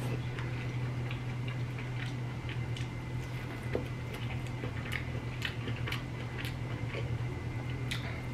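Close-up chewing and biting on Cajun corn: irregular small clicks and crunches from the mouth, over a steady low hum.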